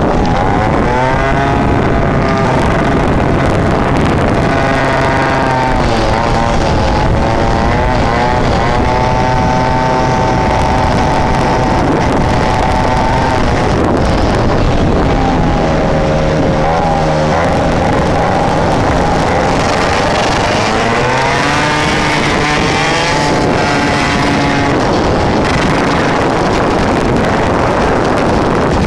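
Small 50cc two-stroke motorcycle engine heard from on board at riding speed. Its pitch climbs several times as the throttle opens and drops back when it eases off, with a steady rush of wind on the microphone.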